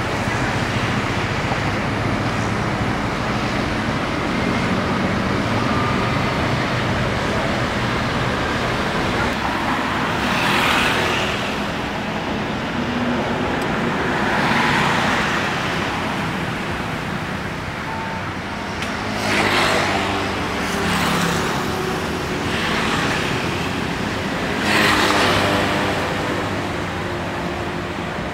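Scania K410iB coach's rear-mounted 13-litre straight-six diesel idling with a steady low hum. Several louder noisy swells of about a second each come and go over it.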